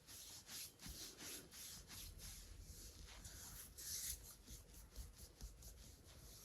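Oiled hands massaging the sole of a child's foot: faint, regular rubbing strokes, about two to three a second.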